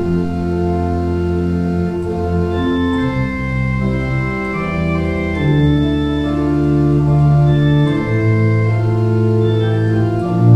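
Organ playing slow, sustained chords that change every one to two seconds.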